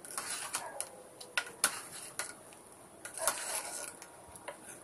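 A spoon stirring dumplings in simmering coconut milk, scraping along the bottom of the pan so nothing sticks, with several sharp clinks against the pot. The scraping comes at the start and again about three seconds in.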